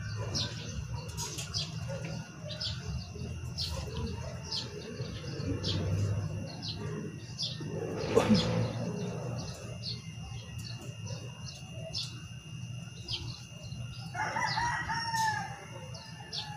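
A rooster crowing about fourteen seconds in, over a small bird chirping again and again, about twice a second, and a steady low hum. A louder rushing sound swells and fades about eight seconds in.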